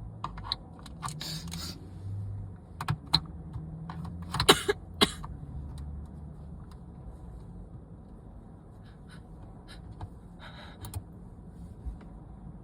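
Handling and rustling noise: scattered sharp clicks, with short hissing bursts about a second in, around four and a half seconds, and near eleven seconds.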